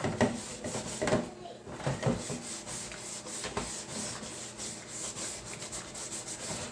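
Hand-scrubbing a greasy plastic pocket-bike fairing piece, a steady scratchy rubbing. A few knocks come in the first two seconds.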